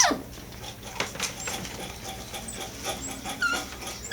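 Miniature dachshund puppies whimpering: a whine falling in pitch at the start and a short high squeak about three and a half seconds in, with light clicks between.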